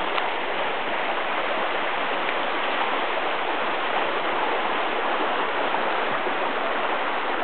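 Small shallow river rapid: water rushing steadily over stones.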